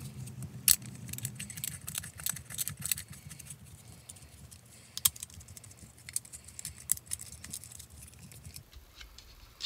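Clear plastic screw locks of a Vulture tip-up alarm housing being twisted shut by hand: irregular small plastic clicks and rattles, with sharper clicks about 0.7 s and 5 s in.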